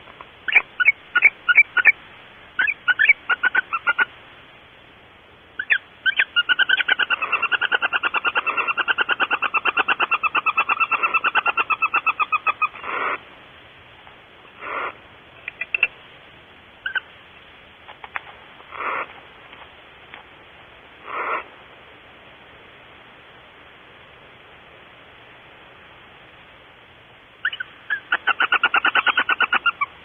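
Barn owls calling in a nest box: scattered clicks, then a rapid chittering series lasting about six seconds. Four short single calls follow a few seconds apart, and the rapid chittering starts again near the end.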